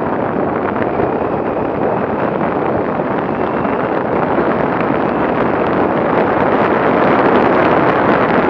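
Enduro motorcycle ridden along a dirt trail, heard from a rider-mounted action camera: a steady rush of wind noise on the microphone with the engine running beneath it, growing a little louder near the end.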